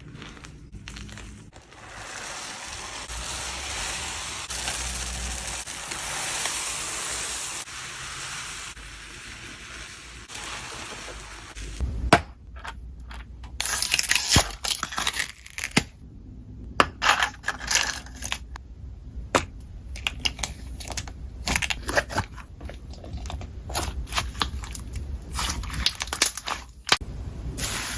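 Slime being played with for ASMR: a steady crackly hiss for several seconds, then from about twelve seconds in a run of sharp, uneven clicks and pops as the slime is pressed and squeezed.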